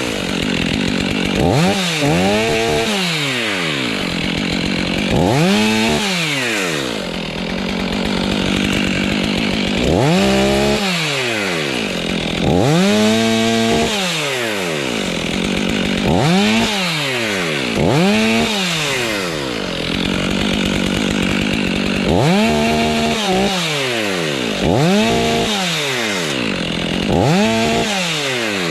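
Chainsaw engine revved up and back down again and again, about a dozen short bursts of throttle with a lower idle in between.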